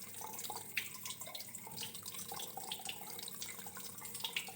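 Running water trickling steadily, with many small irregular drips and splashes.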